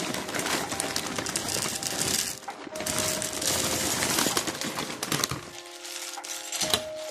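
Fruit-ring cereal pouring from a plastic bag into a bowl of milk, a dense pattering rattle that pauses briefly about two and a half seconds in and stops about five and a half seconds in. A spoon then goes into the bowl, with a sharp clink near the end.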